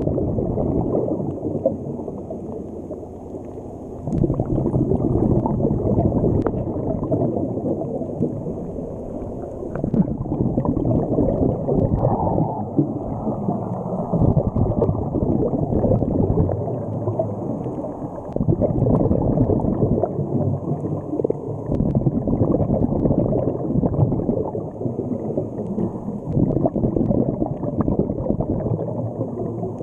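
Muffled underwater rush and gurgle of moving water, heard through a waterproof camera housing, rising and falling in swells with no clear separate events.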